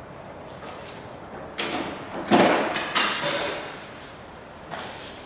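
A few knocks and clatters, loudest about two and a half and three seconds in, then a short rustling sound near the end.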